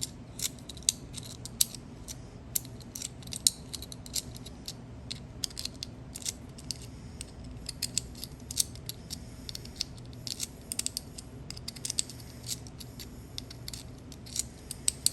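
Small antique three-lever barrel lock being worked by hand after oiling: many irregular light metal clicks and scrapes from its levers and sliding mechanism, over a steady low hum.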